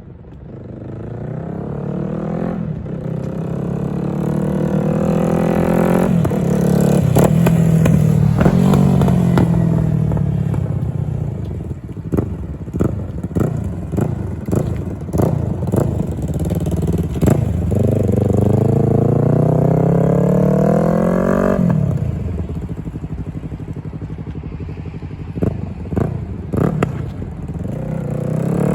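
Motorcycle engine accelerating hard, its pitch rising through the gears with drops at each shift. There is a second hard pull later on that cuts off suddenly. Between the pulls there are runs of sharp crackling clicks.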